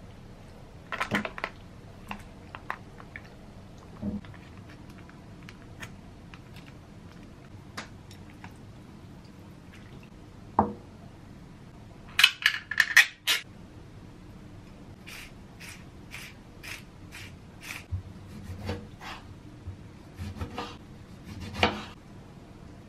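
Kitchen food-prep sounds: utensils and containers knocking against a ceramic bowl, a short loud rattling about halfway through, then evenly spaced light taps and a few duller knocks of a knife on a wooden cutting board near the end.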